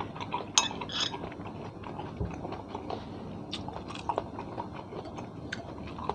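Scattered light clicks and clinks, as of cutlery on dishes, mixed with chewing sounds.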